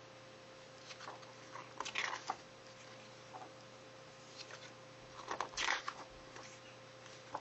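Pages of a paperback artbook being turned by hand: two papery rustles, one about two seconds in and a louder one near six seconds.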